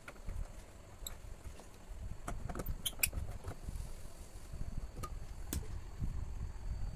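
Scattered light clicks and scrapes of a screwdriver and hands working screws and spacers on the plastic back panel of an LED TV, over a low rumble. A cluster of clicks comes about halfway through.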